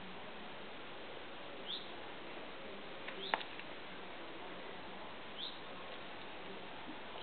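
Three short, high, falling bird chirps spaced about two seconds apart over a steady hiss, with one sharp click a little after three seconds in.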